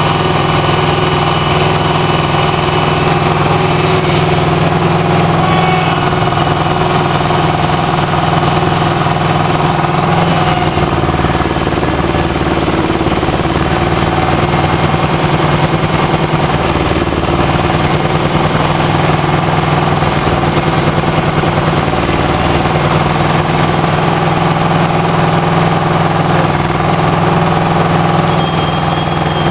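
Aquatic weed harvester's engine running steadily and loudly, with the lowest notes growing heavier and rougher for a few seconds in the middle.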